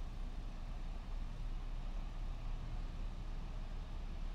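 Steady low rumble of road traffic: cars passing close by, with vehicle engines running.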